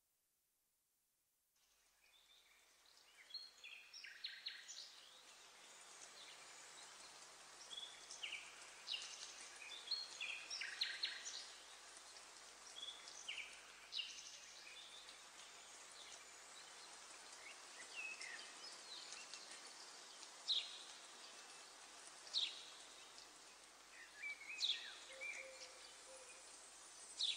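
Recorded nature soundscape of birds chirping, short quick downward-sliding calls scattered throughout, over a steady hiss. It fades in after about a second and a half of silence.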